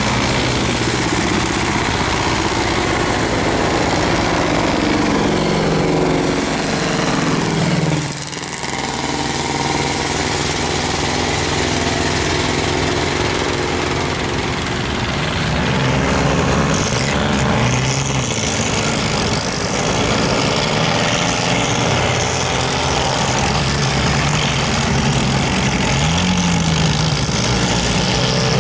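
Several old racing tractors' diesel engines running together as they drive along the course, the engine note rising and falling as they accelerate and ease off. The sound dips briefly about eight seconds in.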